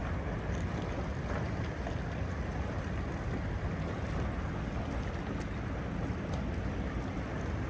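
Steady low rumble of a large car carrier passing close, its engines and the water along its hull, with a few faint scattered ticks from the broken ice around it.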